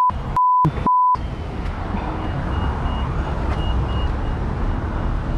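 Three short censor bleeps in the first second or so, each blanking out all other sound, then the steady low rumble of a stopped motorcycle idling amid road noise.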